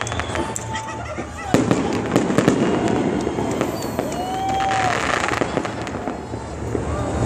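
Fireworks going off in a string of sharp bangs and crackles, thickest about two seconds in, with one loud bang near the end.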